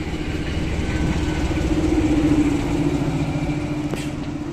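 PKP SM42 diesel shunting locomotive's engine running as it passes close by: the engine note swells to its loudest a little after halfway, then fades as the locomotive moves away. A single sharp click near the end.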